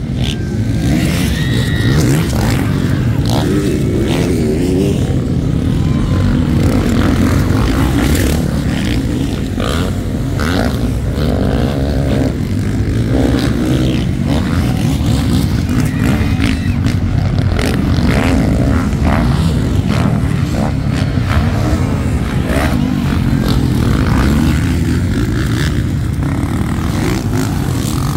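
Motocross dirt bikes racing round a dirt track, their engines revving and changing pitch as they accelerate and pass, with one bike close by near the end.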